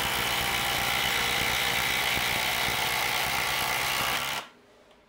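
Makita XDT16 and DeWalt DCF850 cordless impact drivers hammering rapidly as they drive long screws into timber. The hammering stops suddenly about four and a half seconds in as the screws seat.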